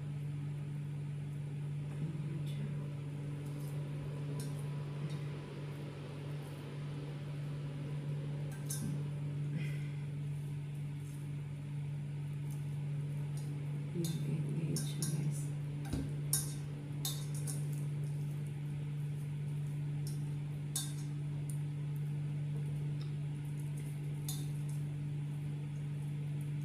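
Light clicks and clinks of hands and rings against a metal bowl as cooked chicken is shredded by hand, over a steady low hum; the clicks come thicker about fourteen to seventeen seconds in.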